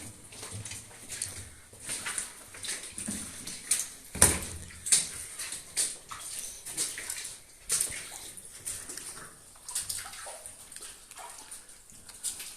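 Irregular scuffing and crunching footsteps, a few a second, with one louder knock about four seconds in.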